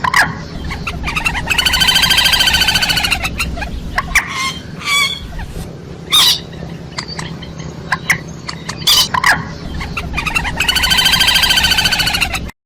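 Moorhen calling: two long drawn-out calls, one a couple of seconds in and another near the end, with short sharp call notes scattered between. The recording cuts off suddenly at the very end.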